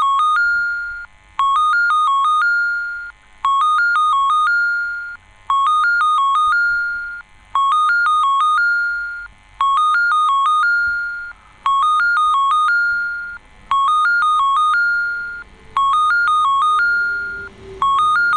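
Tobu Railway station platform approach-warning chime: an electronic chime of a few quick alternating notes ending on a held higher note, repeating about every two seconds to warn that a train is approaching. A faint falling tone joins it near the end.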